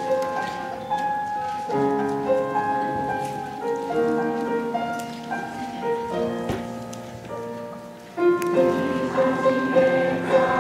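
Mixed choir of adult and children's voices singing held chords with piano accompaniment. The singing swells louder and fuller about eight seconds in.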